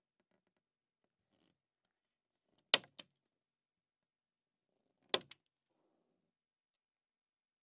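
Utility knife blade cracking through the plastic of a syringe and its plunger, twice: each cut is a sharp snap followed a moment later by a lighter click.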